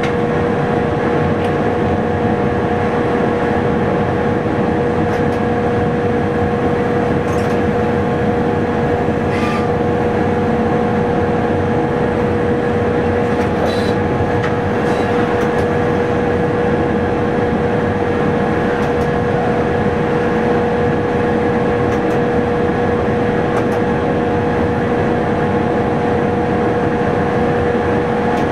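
Train running steadily, heard from inside the driver's cab: a constant running drone with a steady pitched hum over it and a few faint clicks.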